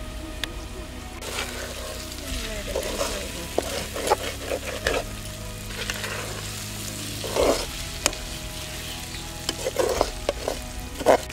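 Chopped okra frying and sizzling in a steel kadai while a ladle stirs it, scraping across the bottom of the pan in irregular strokes, with a few sharp clicks of the ladle against the metal. The sizzle starts about a second in.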